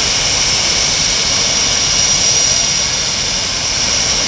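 Several Blue Angels F/A-18 Hornet jet engines idling on the ramp: a steady, high-pitched whine over a low rumble.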